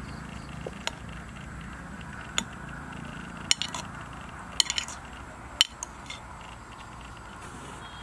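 Metal spoon clinking and scraping against a glazed ceramic bowl of rice and soup: a scattering of sharp clinks, several in quick succession around the middle, over a steady low background hiss.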